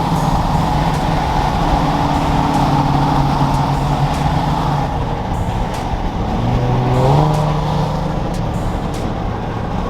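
Car engine running while driving, rising in pitch as it revs up about six and a half seconds in.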